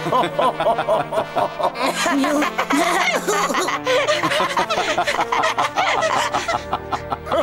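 Cartoon characters, an elephant and a small fox, laughing together in quick chuckles over background music.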